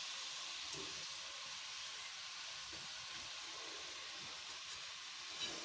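Cubed tinda with onion, tomato and spices sizzling in an aluminium pot over a low-medium gas flame: a faint, steady sizzle as the gourd cooks in its own released water, without added water.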